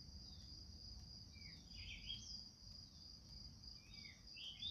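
Near-quiet background with a faint, steady high-pitched insect trill. A few faint short chirps come about two seconds in and again near the end.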